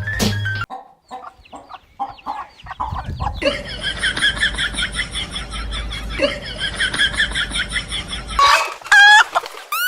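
Chickens clucking in a rapid, busy run of short repeated calls, with a few scattered clicks before it starts and a couple of sweeping squawk-like cries near the end.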